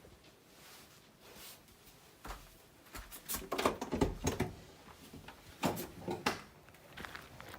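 A run of irregular knocks and clatters, loudest from about three to four and a half seconds in, with two more sharp knocks around six seconds.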